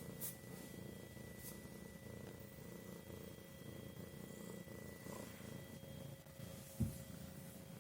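Domestic cat purring steadily, a contented purr, with a brief low thump about seven seconds in.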